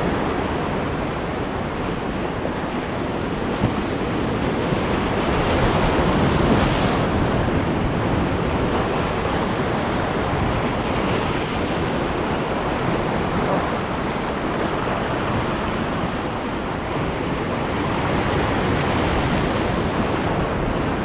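Ocean surf breaking on a rocky shore: a continuous wash of waves that swells and eases as the breakers come in.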